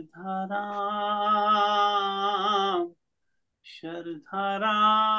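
A man singing a Hindi devotional bhajan, holding long drawn-out notes, with a short pause for breath about three seconds in before the next held note.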